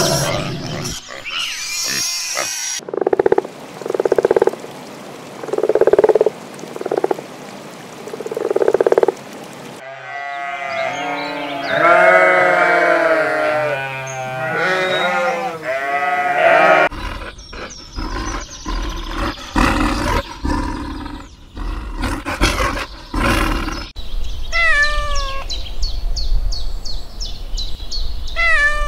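A run of animal sounds: pigs at the start, then a flock of sheep bleating together in the middle, and a domestic cat meowing a few times near the end. In between come other short animal calls and a low rumble with sharp clicks.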